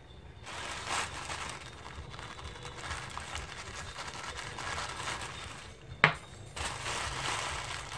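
Thin plastic shopping bag crinkling and rustling as a cotton swab soaked in medicated oil is rubbed over its printed letters. There is one sharp click about six seconds in.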